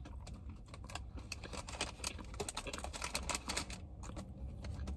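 Paper food packaging crackling and rustling as it is handled and opened, a dense run of small crackles with a short lull about four seconds in.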